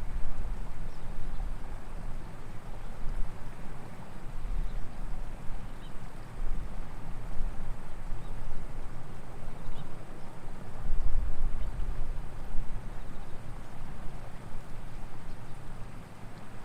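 Steady outdoor background noise with a low, uneven rumble that swells and fades, loudest about eleven seconds in, and a few faint high chirps.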